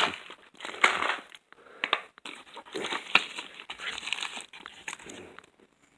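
Hands rummaging and handling small tools: irregular crinkling and rustling with a few sharp clicks.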